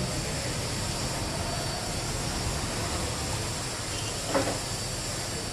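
Steady low mechanical rumble with a hiss over it, like a machine or engine running.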